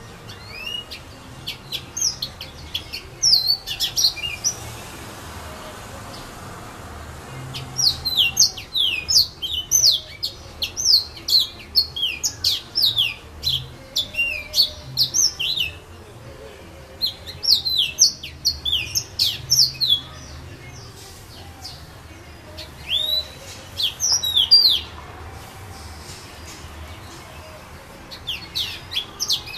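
Caged yellow-fronted canary (Réunion's serin du pays) singing: bouts of rapid, high sweeping chirps and trills broken by pauses of a few seconds, the longest bout lasting about eight seconds.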